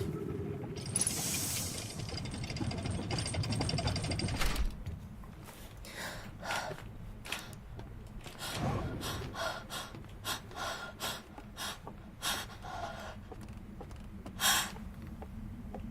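A woman breathing and sniffing between allergy sneezes. There is a stretch of breathy noise over the first few seconds, then a long run of short sniffs.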